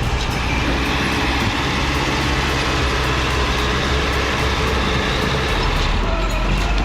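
A heavy machine's engine running steadily under load, with a dense, even mechanical noise.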